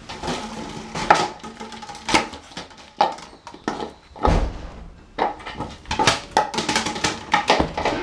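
Small fluffy dog scampering about on a tiled floor: a quick, irregular run of clicks and knocks from its claws and body.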